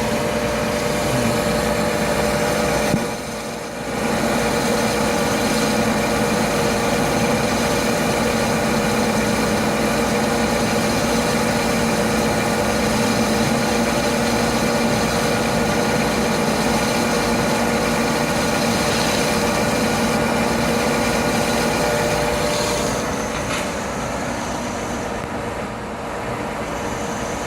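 Metal lathe running at about 450 RPM, its motor and gearing giving a steady hum with a light cut being taken on the workpiece. It drops briefly about three seconds in and runs a little quieter near the end.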